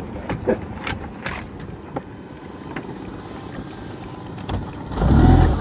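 A few light knocks and clicks as a lobster pot is handled against the side of a small dinghy, over a steady background of water and boat noise. About five seconds in comes a louder, low buffeting rumble.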